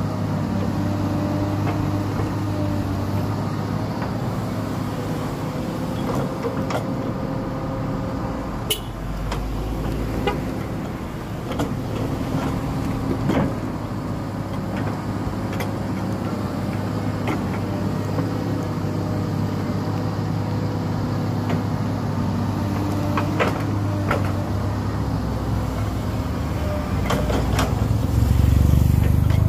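Komatsu PC200 hydraulic excavator's diesel engine running steadily while it digs, with scattered sharp knocks and scrapes of the bucket on soil and stones. A motorcycle passes close by near the end, briefly louder.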